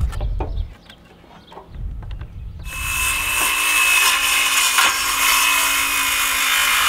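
A DeWalt battery-powered circular saw starts about two and a half seconds in and cuts through a pine fence picket, a steady high whine over the noise of the blade in the wood. A few light knocks come in the first second before it.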